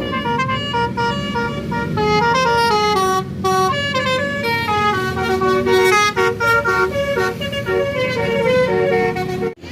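Indonesian tour bus's 'basuri' telolet horn playing a quick tune of short stepped notes, over the low rumble of vehicles, with a brief break near the end.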